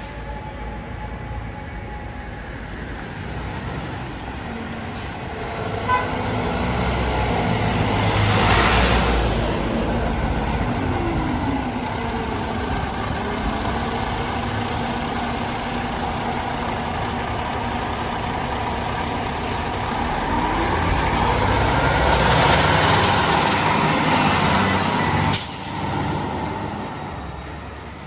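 Heavy fire trucks passing in city traffic: diesel engine and road rumble that swells twice, about nine seconds in and again past twenty seconds, with hissing that the tagger takes for air brakes. A siren trails off in the first few seconds, and the sound drops off abruptly near the end.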